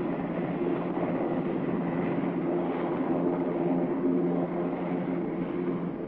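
Lockheed AH-56 Cheyenne compound helicopter running at lift-off power, lifting from the ground into a hover: a steady drone from its single General Electric T64 turboshaft, four-blade rigid rotor and tail pusher propeller, with a few held low tones.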